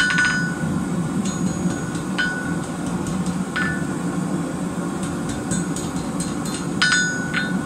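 Hammer striking red-hot rebar on a steel anvil as the twisted bars are straightened: a few spaced blows, each with a short metallic ring, the loudest at the start and near the end. A steady low hum runs underneath.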